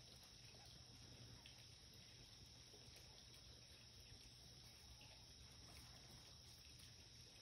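Near silence: a faint, steady background hum and hiss with no distinct sounds.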